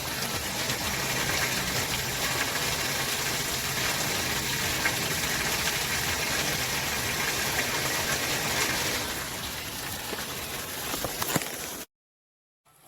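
Water rushing and gushing in a steady stream. It eases slightly near the end and then cuts off abruptly.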